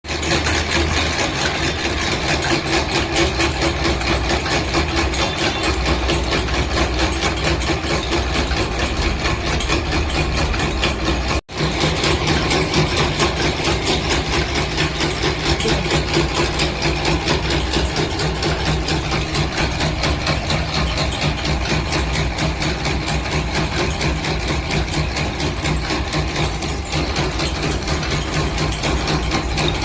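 Machinery running steadily with a fast, even pulsing, broken by a brief cut about eleven seconds in.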